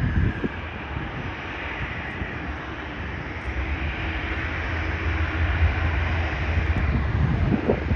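Jet airliner's engines during a departure, a steady rushing noise that grows louder through the second half. Wind buffets the microphone near the end.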